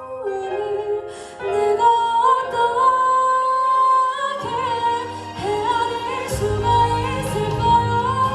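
Live female vocal singing a slow ballad melody with instrumental accompaniment; deep bass notes come in partway through and the sound grows fuller near the end.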